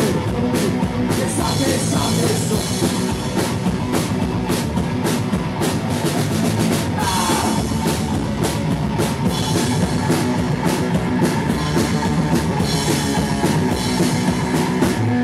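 A rock band playing live, an instrumental break with drum kit, guitar and bass and no singing.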